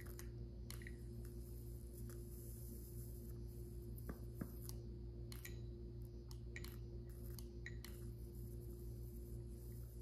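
A lighter clicking again and again, about a dozen short, irregular clicks, while the candle fails to light, over a low steady hum.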